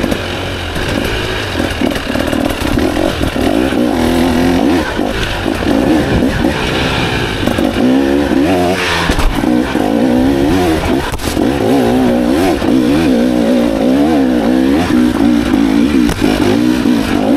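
KTM EXC 300 TBI single-cylinder two-stroke enduro engine under way, revving up and down again and again as the throttle is opened and closed, its pitch rising and falling.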